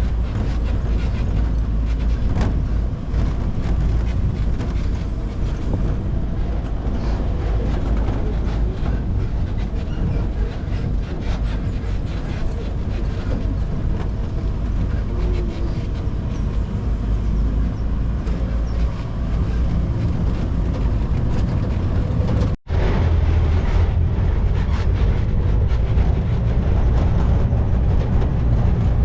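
Steady low rumble of a moving motor vehicle, with a brief sharp break about two-thirds through where the recording cuts.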